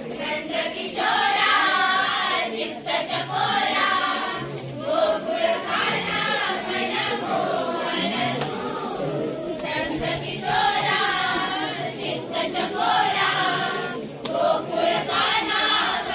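A group of voices singing a devotional song to Krishna in chorus, in sung phrases a few seconds long with brief breaks between them.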